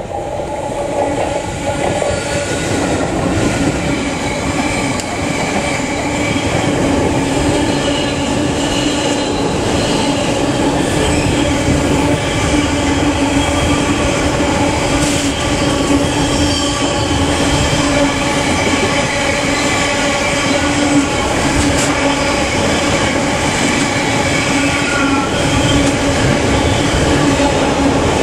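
Freight train running through the station: a loud, steady rumble of wagons on the rails with a sustained high tone over it, building up over the first couple of seconds and then holding.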